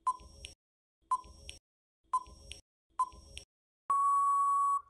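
Countdown-timer sound effect: a short electronic beep once a second, four times, then a long steady beep lasting about a second as time runs out.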